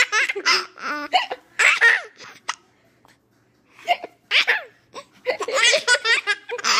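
A child's high-pitched laughter in short bursts, broken by hiccups. There is a quiet pause about three seconds in, then a longer fit of laughing near the end.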